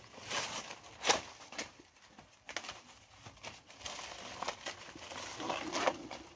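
Dry banana leaves crackling and tearing as they are cut and pulled off a banana plant's trunk with a knife. A few sharp snaps come in the first three seconds, then a longer stretch of crackling near the end.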